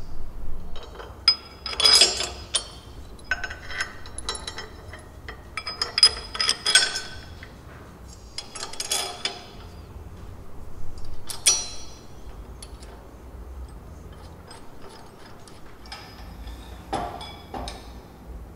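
Metal suspension parts and hardware clinking and rattling while they are handled and fitted, with some ringing metallic clicks. The sounds come in several short bursts with pauses between them, the busiest stretch in the first seven seconds.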